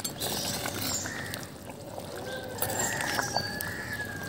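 Long metal ladle stirring a thick, simmering curry in a clay pot, the liquid sloshing and trickling.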